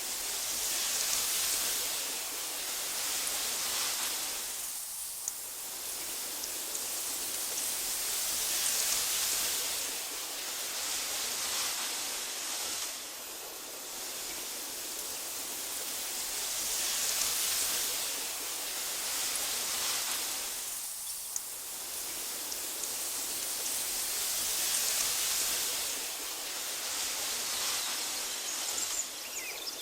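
Wind blowing through tall meadow grass: a steady hiss that swells and eases in gusts about every eight seconds, with a few faint ticks.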